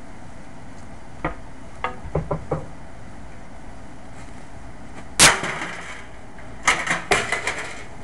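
Blunt back of an axe head striking a sheet-metal space heater: a few light knocks in the first couple of seconds, one loud ringing metal clang about five seconds in, then a quick run of four or five clanks and rattles near seven seconds.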